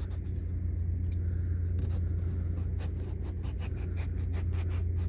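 Kitchen knife slicing thin cuts into a raw potato for Hasselback potatoes: a run of short scraping strokes, about four a second, thickest from about two seconds in. A steady low hum sits underneath.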